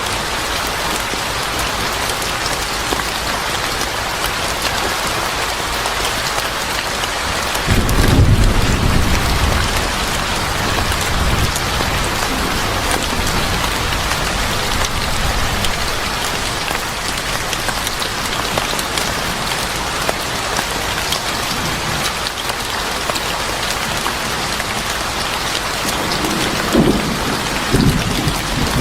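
Steady heavy rain falling on a surface, with a low roll of thunder about a third of the way in and two shorter low rumbles near the end.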